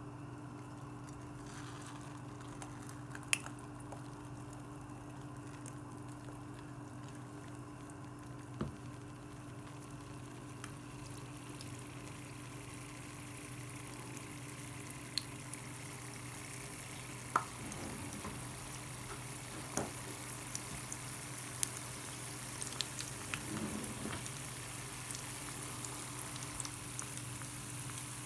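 Jalebi batter frying in hot oil in a cast-iron skillet: a sizzle that grows louder partway through as more batter goes in, with scattered sharp pops. A steady low hum runs underneath.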